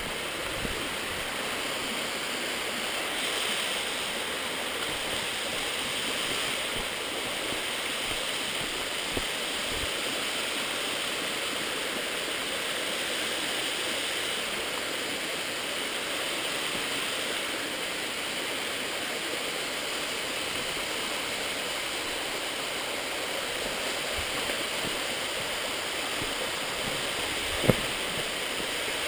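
Steady rushing noise from a camera mounted on a mountain bike riding down a rocky trail, with a single sharp knock near the end.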